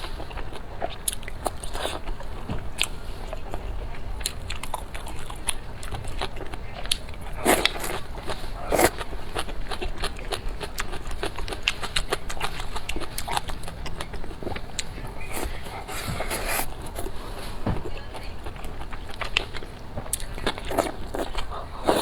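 Close-miked eating: biting and chewing with many small wet clicks and crunches, two louder bites about a third of the way through.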